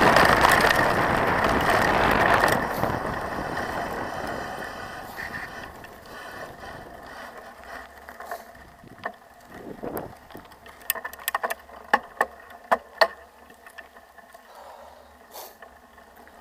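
Mountain bike rolling on a gravel road, with tyre and wind noise that fades over the first few seconds as it slows. Then comes a run of sharp clicks and rattles from the bike, loudest from about nine to thirteen seconds in.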